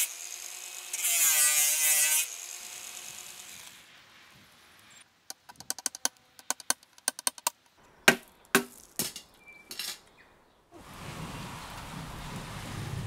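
Angle grinder with a cut-off wheel cutting through a rusted steel window glazing channel on the glass, its whine shifting in pitch under load, then winding down by about 4 s. Then a run of light clicks and a few sharp knocks as the cut channel is worked off the glass, and near the end steady rain.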